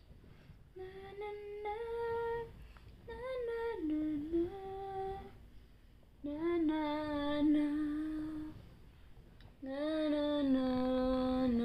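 A woman humming a slow lullaby in four long phrases of held notes that step up and down in pitch, with short pauses between them.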